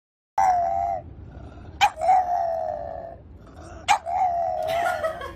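French bulldog howling: three long, wavering howls, the second and third each beginning with a short sharp onset.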